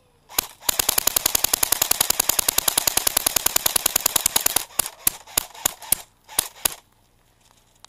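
Airsoft AK-47 Tactical electric replica firing. One shot, then a full-auto burst of about 14 shots a second lasting about four seconds, then about seven single shots in quick succession.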